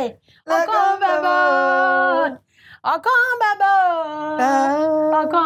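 A woman singing unaccompanied, holding two long, wavering notes with brief pauses for breath between phrases.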